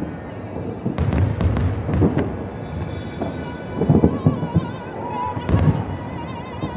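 Aerial fireworks shells bursting with deep, rumbling booms, four or so about a second or two apart, the loudest in the second half.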